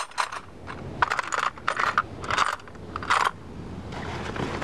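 Small metal hardware clinking and jingling in several short bursts as a licence plate mount is fitted to a car's rear bumper.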